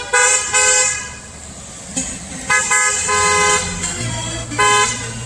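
Car horns honking in a drive-by salute: three quick toots at once, a longer pair about two and a half seconds in, and another short one near the end.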